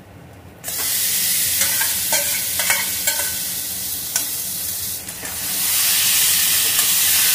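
Spice-marinated chicken dropped into hot mustard oil in a metal kadai of fried potatoes and onions: a sudden loud sizzle starts about half a second in, with scrapes and knocks of a metal spatula against the pan as it is stirred. The sizzle dips briefly and swells louder again near the end.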